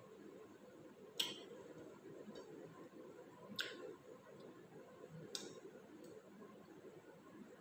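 Quiet eating sounds of a meal eaten by hand: three sharp clicks about two seconds apart, the first the loudest, over a faint steady room hum.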